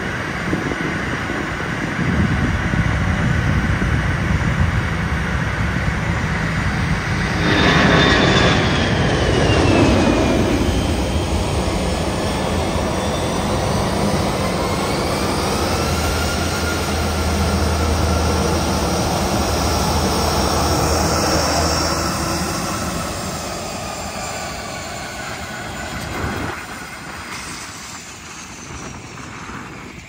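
Jet airliner engines running: a steady rumble and rush with a turbine whine that drops in pitch about eight seconds in, then a whine that rises and holds for several seconds in the middle. The sound thins out in the last few seconds.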